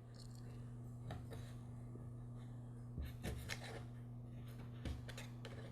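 Faint handling sounds: a few soft clicks and light rubbing as a gasket is taken off and fitted on a lawn mower carburetor's heat shield, over a steady low hum.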